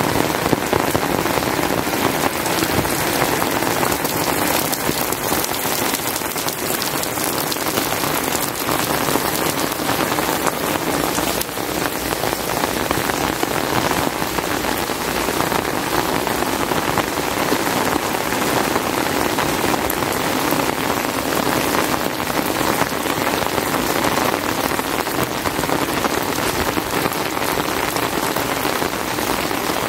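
Heavy rain falling steadily, a dense even hiss of drops.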